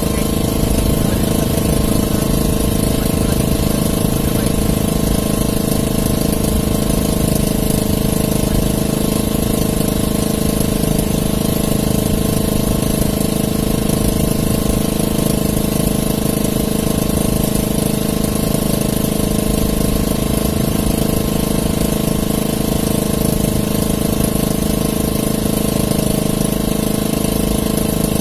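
Small engine aboard an outrigger fishing boat running steadily at one constant speed, a low even drone that does not change.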